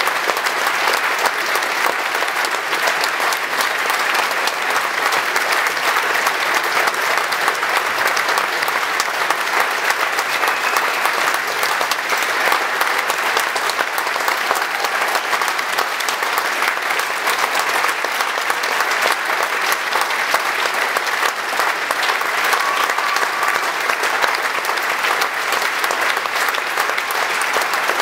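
Audience applauding steadily: a dense, even patter of many people clapping.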